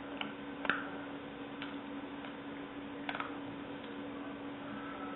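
A few light clicks and taps over a steady low hum. The loudest click comes just under a second in, and a quick double click follows about three seconds in.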